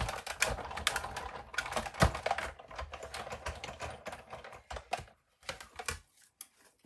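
Hand-cranked roller die-cutting machine being turned, with a rapid run of clicks and crunches as the plate sandwich is rolled through and the die cuts the cardstock. The clicks thin out to a few knocks about five seconds in, as the plates are lifted out.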